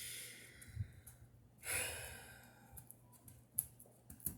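A person sighing twice in frustration, two long breathy exhales, followed by a few small sharp clicks near the end.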